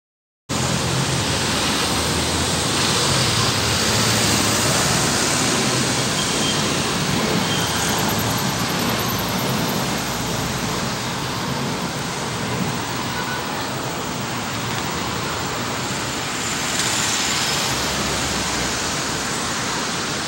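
Airbus A319-115 airliner's CFM56 jet engines heard from the ground as a steady, loud roar while the plane climbs out after takeoff, swelling slightly twice.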